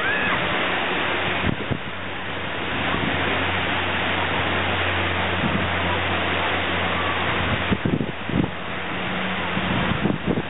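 Wind rushing over the microphone, with the steady low drone of a propeller-driven firefighting water-bomber plane running underneath.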